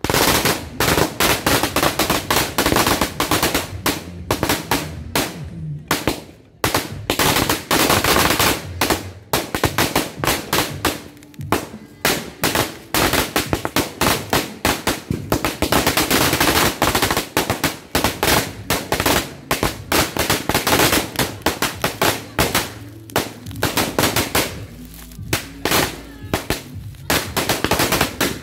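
4Sure Sawa 1000-round firecracker belt going off in a fast, unbroken string of loud bangs. It thins briefly about six seconds in and again a few seconds before the end.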